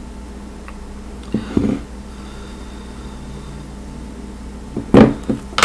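Steady low hum with soft handling noises about a second and a half in, then two sharp knocks near the end: a ceramic sage burner and a lighter being handled and set down on a hard tabletop.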